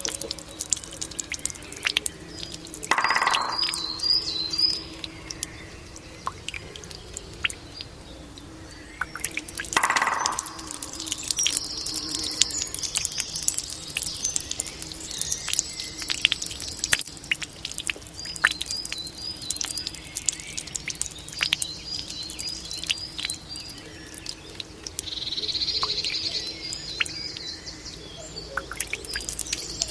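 Water from a Japanese bamboo fountain dripping and trickling steadily, with songbirds chirping in short repeated trills. Two brief louder sounds stand out, about three and ten seconds in.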